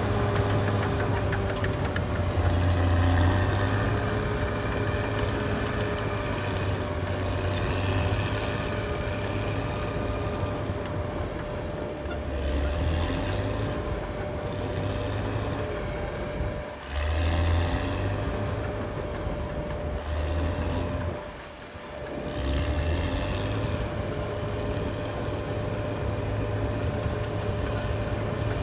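Caterpillar D6R XL bulldozer's diesel engine working under varying load. Its pitch rises and falls, and it dips briefly twice, about halfway through and again a few seconds later.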